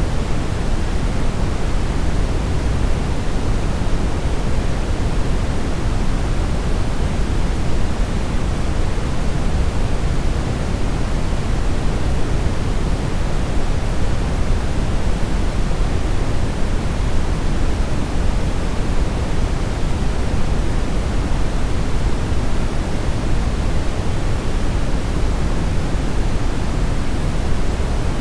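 Brown noise: a steady, even rushing hiss, heaviest in the deep bass and fading toward the treble, with no change throughout.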